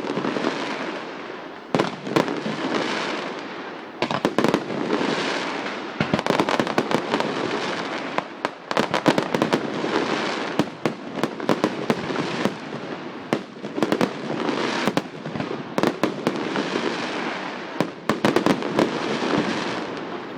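Fireworks display: sharp bangs of bursting shells in quick succession, over a continuous rushing noise that swells and fades every second or two.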